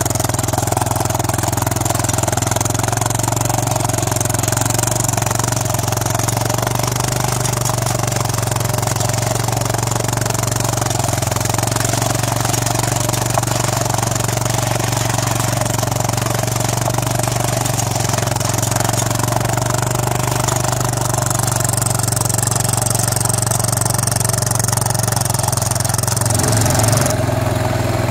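ATV engine running at a steady speed while the quad drives through snow on homemade half-tracks, with a constant hum and a noisy rush above it; the sound changes abruptly near the end.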